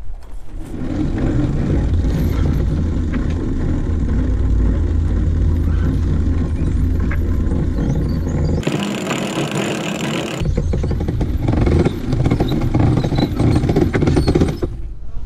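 Steady low rumble of wind buffeting the microphone and engine noise on deck of a boat under way. About eight and a half seconds in, the rumble drops out for a couple of seconds, leaving a brighter rushing hiss, then comes back.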